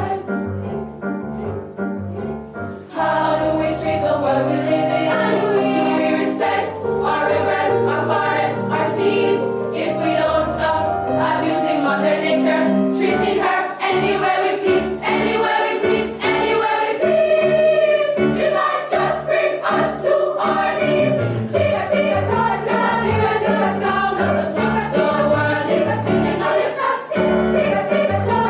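School choir singing a song, the sound growing fuller about three seconds in.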